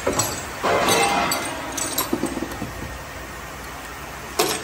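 Metal hand tools and parts clinking and clattering while a car's front brake and wheel hub are being worked on: a few sharp clinks, with a longer clattering stretch about a second in and another pair of clinks near the end.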